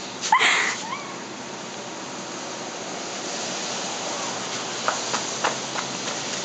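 Steady hiss of rain falling, with a few light ticks about five seconds in.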